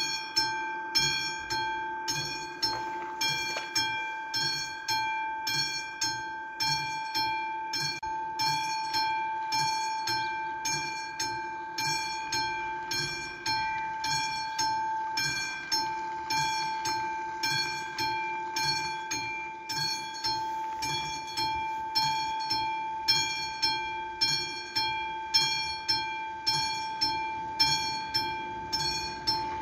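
Level crossing warning bell, a classic mechanical bell on the AŽD 71 crossing signals, ringing in a steady, even rhythm of about three strokes every two seconds. It signals that the crossing warning is active and a train is approaching.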